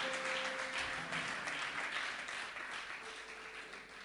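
Congregation applauding, the clapping dying away over a few seconds, with a few faint held musical notes beneath it.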